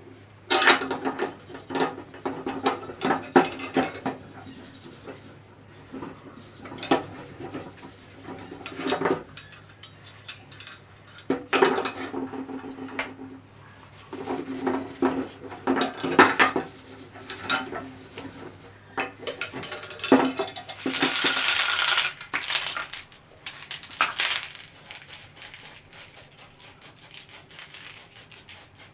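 Cloth rubbing over a metal motorcycle exhaust silencer on a wooden workbench, in irregular bursts, with the pipe clinking and knocking as it is handled and moved.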